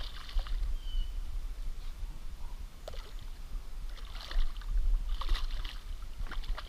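A hooked fish splashing and thrashing at the river surface as it is played in on a spinning rod. The splashing comes in short bursts: right at the start, then again about four, five and six seconds in.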